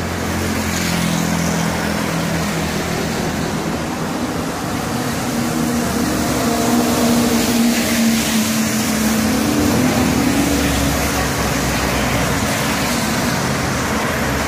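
Road traffic passing on a wet road: the engines of cars, motorbikes and trucks over a steady hiss of tyres on the wet surface. A heavy truck's engine is loudest passing close in the middle.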